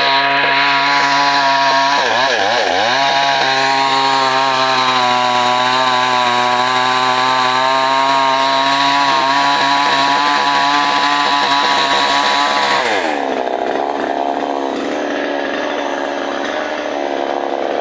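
Chainsaw engine running at high revs, its pitch wavering briefly about two seconds in, then dropping back to idle about thirteen seconds in.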